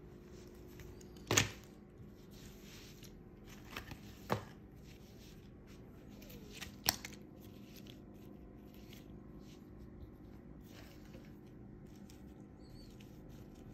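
A football jersey being unfolded and handled by hand: faint fabric rustling over a steady low hum, with three sharp clicks or taps spread over the first seven seconds, the last one the loudest.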